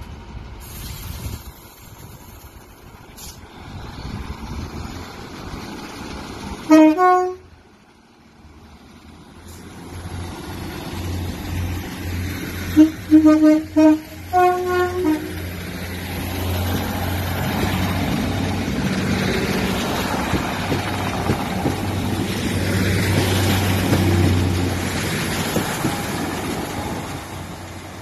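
British passenger trains sounding two-tone horns: one short blast about seven seconds in, then a quick run of short low and high blasts between about thirteen and fifteen seconds in. After the blasts comes a steady low rumble of a diesel train running past.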